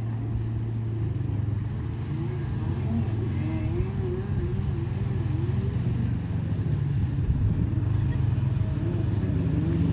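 Jet ski engines running on the water: a steady low engine drone with a higher engine tone that keeps rising and falling as the throttle and load change.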